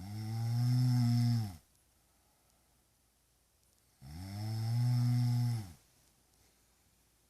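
Snoring: two long, low snores about four seconds apart. Each lasts about a second and a half, rising a little in pitch and then sliding down before stopping, with quiet breathing gaps between.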